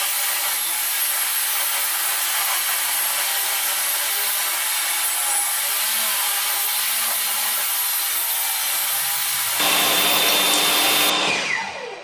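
A jobsite table saw rips old deck boards lengthwise, a steady loud cutting sound that gets louder for a stretch near the end of the cut. The saw is then switched off, and the blade spins down with a falling whine.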